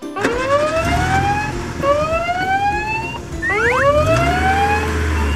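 Fire engine siren wailing: each rise in pitch breaks off sharply and starts again about every two seconds, over a low rumble.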